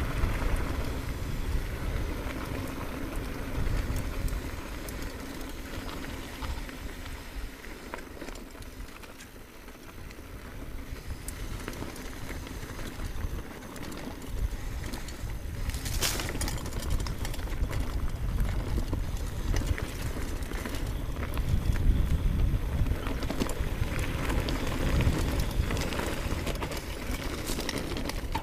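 Orbea Alma hardtail mountain bike riding over gravel and dirt trail: a steady low rumble of tyres on the ground with frequent small clicks and rattles from stones and the bike. A single sharper knock or crunch about sixteen seconds in.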